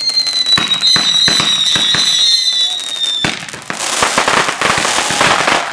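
Fireworks: a high whistle, slowly falling in pitch, sounds for about three seconds over a run of sharp pops and cracks. It then gives way to a dense, rapid crackling.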